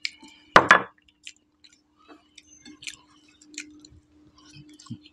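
Two people eating spiced rice by hand: chewing, lip smacks and small wet clicks scattered through. A loud knock comes just under a second in, like a plate set down on the table. A faint steady hum runs underneath.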